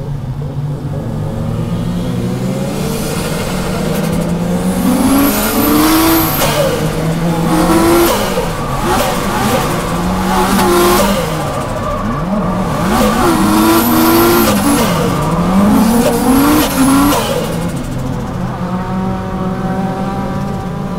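Toyota JZX-series 1JZ turbocharged straight-six heard from inside the cabin, revving up and dropping back again and again as the car drifts, with tyres squealing over the engine through the middle. The engine note is steadier and lower at the start and near the end.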